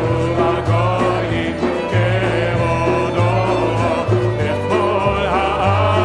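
Congregation singing a Hebrew psalm melody together, accompanied by an upright double bass whose low notes change about once a second.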